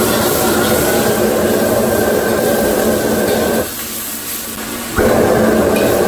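Beef brisket sizzling as it is stir-fried in a wok over a commercial gas wok burner running at full blast, cooking off the meat's water. The burner's steady roar and the sizzle drop away for about a second past the middle, then come back suddenly.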